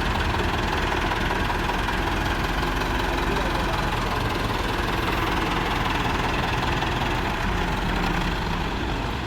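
Massey Ferguson tractor's diesel engine running steadily.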